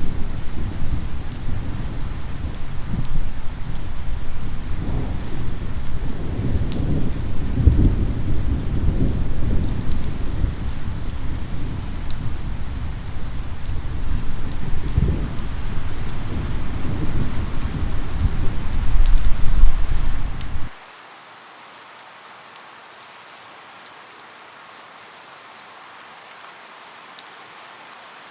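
Steady rain with thunder rumbling. About 21 seconds in, the rumble and most of the loudness cut off suddenly, leaving a much quieter rain hiss.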